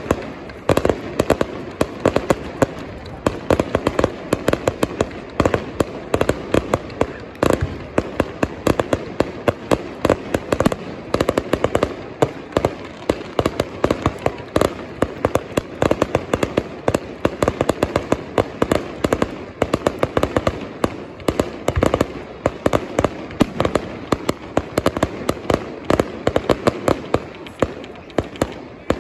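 Fireworks going off in a continuous barrage: sharp cracks and pops several times a second with no break, over a steady crackling haze.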